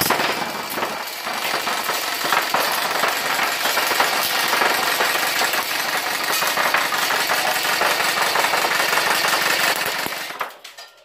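Classic Army M132 four-barrel rotating-barrel airsoft microgun, running on green gas, firing BBs on full auto in one continuous burst of rapid shots. The burst stops about ten seconds in.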